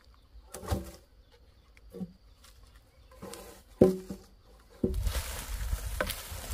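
Cut logs knocking against one another as they are laid down and stacked: a few separate wooden clunks, the loudest just before the end. In the last second and a half, a steady rustling noise with a low rumble takes over.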